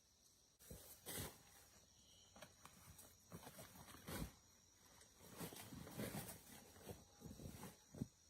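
Faint, irregular rustling with a few short, sharp knocks.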